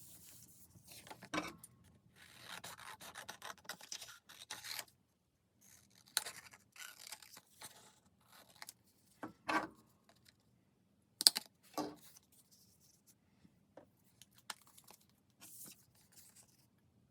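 Paper and craft materials being handled: irregular bouts of rubbing, scraping and rustling, with a few sharp taps.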